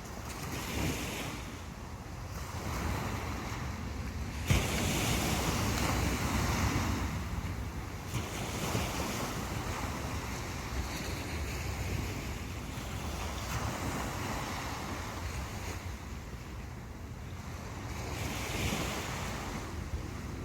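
Sea waves rolling in and washing up the beach in slow swells, with wind buffeting the microphone as a low rumble. A sharp knock about four and a half seconds in is followed by a louder surge of surf, and another wave swells up near the end.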